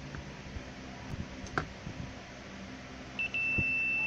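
Continuity buzzer built into an analog multimeter converted into an ESR tester: a short blip, then a steady high beep about three seconds in. It sounds as the test leads are touched together, the sign of a short circuit. A few faint handling clicks come before it.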